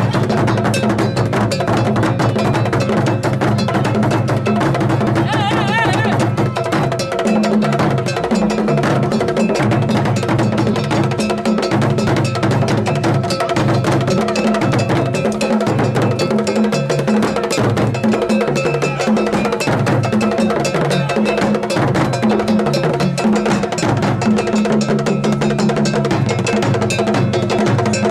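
Ga obonu drum ensemble playing: large barrel drums beaten with sticks in a steady interlocking rhythm, with a metal bell clanging a constant time pattern on top.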